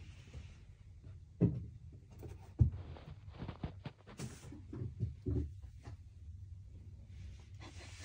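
Kittens playing: two sharp thuds about a second and a half and two and a half seconds in, then a run of lighter knocks and scuffles.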